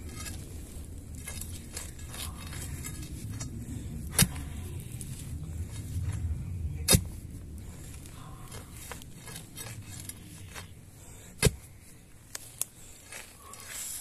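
Steel bar being jabbed into hard, dry ground to open a fence-post hole: scuffing and scattered sharp knocks, the loudest about four, seven and eleven and a half seconds in. A low rumble runs under the first half.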